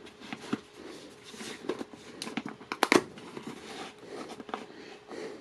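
Camera box packaging being opened and handled: paper and plastic crinkling and tearing, with scattered clicks and taps, the loudest a pair of sharp snaps about three seconds in.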